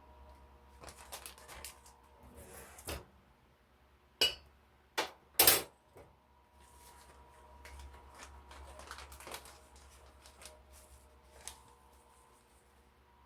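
Kitchen handling sounds: a plastic bag rustling and dishes or utensils clinking. Three loud sharp knocks come about four to five and a half seconds in.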